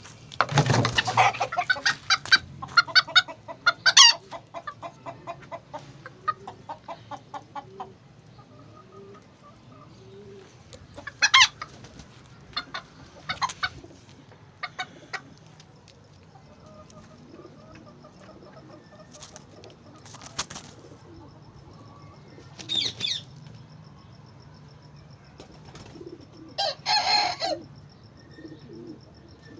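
Serama bantam chickens clucking in a quick run of calls over the first several seconds after a loud call at the start. Scattered single squawks follow, with a longer call near the end.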